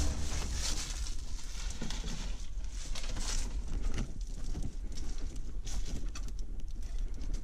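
Footsteps and rustling over dry leaf litter and bare dirt, with irregular light clicks and knocks from handled metal snake tongs.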